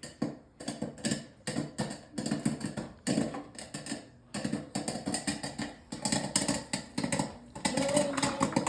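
Popcorn kernels popping: rapid, irregular pops that come thicker toward the end.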